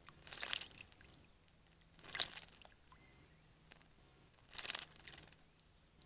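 Small songbird bathing in a shallow bird bath: three short bouts of wing-fluttering splashes, about two seconds apart.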